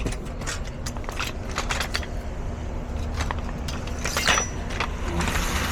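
Keys and small objects clicking and rattling inside a parked car, over a steady low hum. The clicks come irregularly, with a louder rattle about four seconds in.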